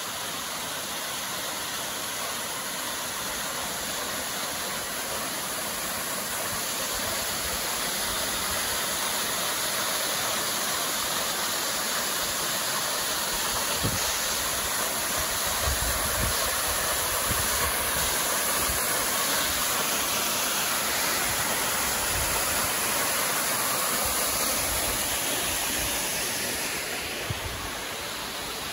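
Steady rush of a narrow waterfall falling down a rock cliff onto the rocks below, heard close by. Low bumps of wind on the microphone come and go through the middle part, and the rush eases a little near the end.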